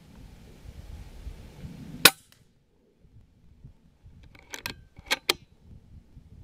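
A single sharp rifle shot about two seconds in, short with little ringing, followed a couple of seconds later by two pairs of quieter sharp clicks.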